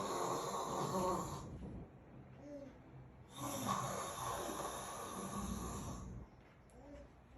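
A man snoring in his sleep: two long snores, the first fading out about a second and a half in, the second starting about three seconds in and lasting nearly three seconds.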